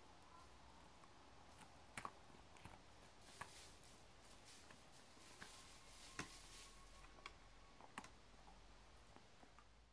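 Near silence broken by a few faint, sharp clicks and soft scrapes, from a dog nosing and shifting about in a sandbox of loose sand.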